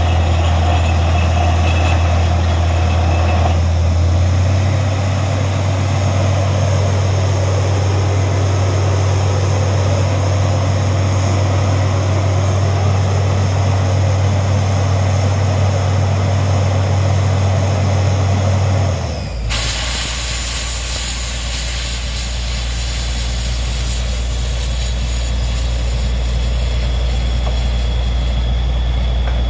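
Truck-mounted borewell drilling rig running steadily with a deep engine and compressor hum. The note shifts slightly about four seconds in, and about two-thirds of the way through it drops lower as a loud steady hiss of compressed air sets in.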